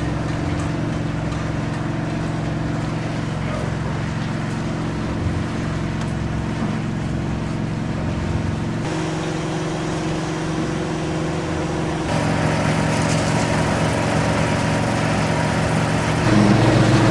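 Construction-site machinery: a small engine runs steadily with a low hum. Its mix changes and grows louder a few times, with steps about 12 and 16 seconds in.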